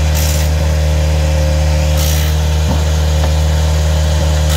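An engine idling steadily, a deep even drone that does not change. Three short bursts of hiss cut in over it, about two seconds apart.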